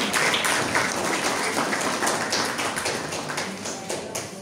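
Irregular sharp taps and scattered claps from a crowd over a general hubbub, growing quieter toward the end.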